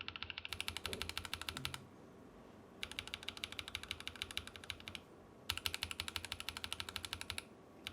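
Rapid clacking of Akko CS Ocean Blue tactile mechanical switches being typed on fast, in three bursts separated by short pauses. It is a sound comparison of the switches stock, which carry a little ping, against lubed.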